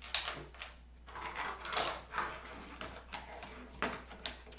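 Plastic toy parts and their packaging being handled and sorted through by hand: irregular clicks, taps and light rustling.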